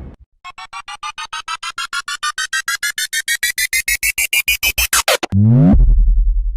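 Synthesized sound effect: a rapid run of electronic beeps, rising in pitch and speeding up for about five seconds, then a fast downward sweep into a deep bass hit that holds for about a second.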